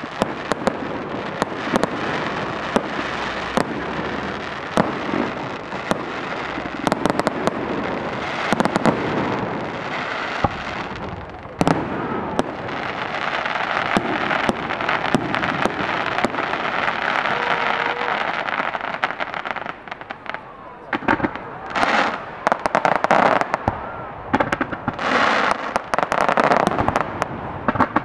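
Fireworks display: aerial shells bursting with frequent sharp bangs over a dense wash of crackling. After a short lull about two-thirds of the way through come rapid clusters of crackling bangs.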